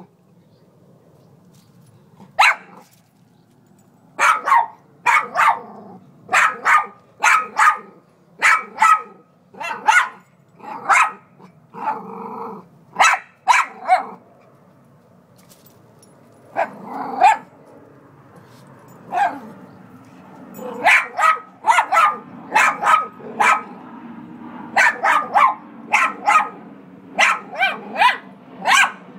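A dog barking in runs of short, sharp barks, about two a second, with a brief growl about twelve seconds in and a short pause soon after.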